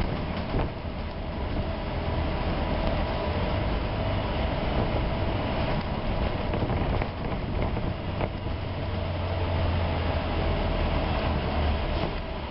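Inside a moving city bus: steady engine and road rumble with a faint constant whine, and a few light rattles.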